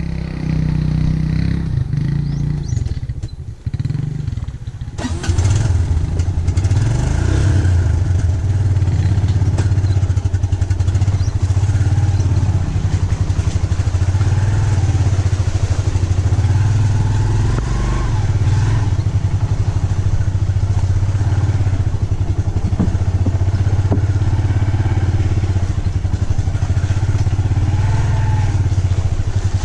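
Small motorcycle engine running close by, uneven with dips for the first few seconds, then a steady low drone.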